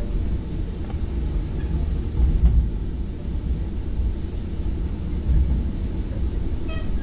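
Steady low rumble of a Virginia Railway Express train running, heard from inside a Gallery IV bilevel trailer car, with a brief high tone near the end.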